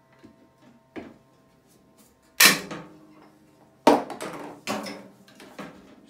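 Handheld PEX tubing cutter snapping through blue PEX pipe with one sharp crack about two and a half seconds in. A few sharper knocks and clicks follow near four and five seconds as the cut tube is handled.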